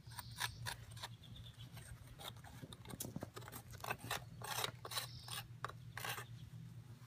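Gritty scraping and rubbing of casting sand as gloved hands work an aluminum casting loose in its wooden flask, in short irregular strokes. A steady low hum runs underneath.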